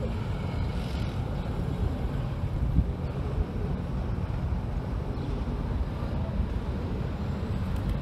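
Steady low rumble of street traffic, mixed with wind buffeting the microphone.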